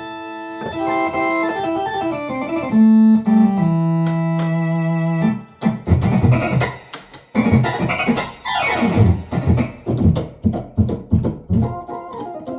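Philips Philicorda 22GM755 transistor organ with valve amplification, played with spring reverb and vibrato. Sustained chords step downward over held bass notes, then about five seconds in the playing turns to quick, rhythmic staccato notes with a fast downward run across the keys.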